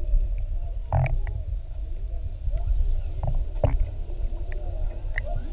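Humpback whale song heard underwater: faint rising and falling calls, with a few sharper higher calls about a second in and again around three and a half seconds, over a steady low rumble of water against the camera housing.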